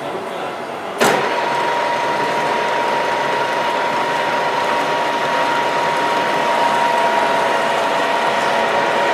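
1A616 screw-cutting lathe running. About a second in there is a sharp clunk, and the gears then run louder with a steady whine.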